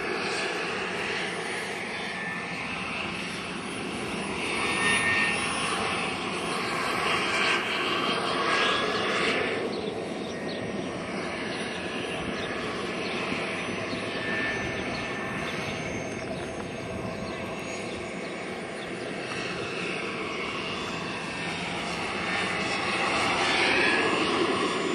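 JetCat PHT3 gas turbine of a radio-controlled Hughes 500E model helicopter running in flight, a steady high whine over the rotor noise. It grows louder as the helicopter passes close, about five to nine seconds in and again near the end.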